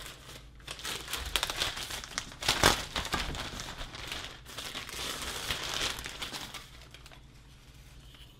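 Pink plastic anti-static bag crinkling and rustling as a TV circuit board is pulled out of it, with sharp crackles, the loudest about two and a half seconds in; the rustling dies away about seven seconds in.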